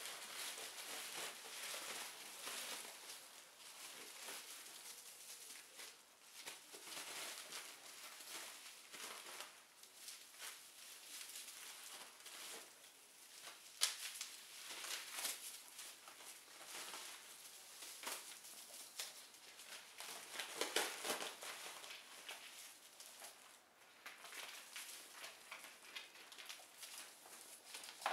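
Bubble wrap crinkling and rustling in irregular bursts as ferrets scramble over and under it, with one sharp crack about fourteen seconds in and a louder stretch of crackling around twenty-one seconds.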